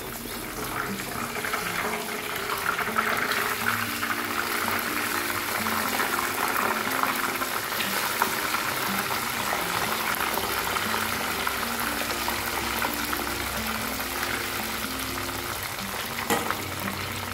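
Chicken nugget sticks deep-frying in a pan of hot oil: a steady, crackling sizzle that grows louder over the first couple of seconds. Background music plays underneath.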